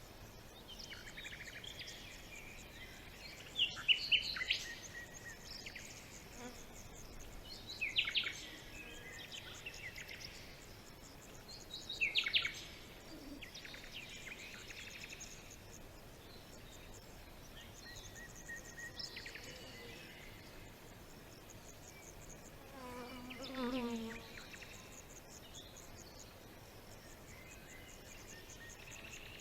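Forest ambience: a bird sings short, falling phrases about every four seconds, loudest in the first half, over a steady chirring of insects. A lower, deeper call comes near the end.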